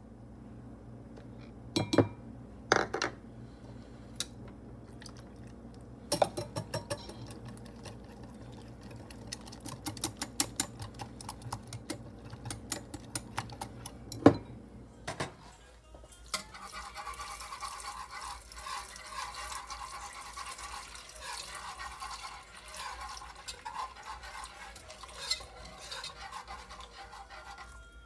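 A wire whisk beating an egg-yolk mixture in a glass measuring jug: a long run of quick clinking strokes against the glass, with a few sharp knocks. Later comes a steadier swishing as liquid is whisked in a pot.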